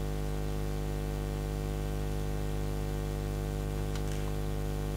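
Steady electrical mains hum with a faint hiss, unchanging throughout, with a couple of faint clicks about four seconds in.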